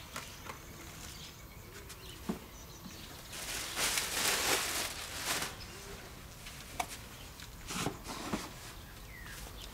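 Cardboard box and packaging rustling and scraping as a pressure washer is pulled out of its box, loudest about four to five seconds in, with a few sharp knocks.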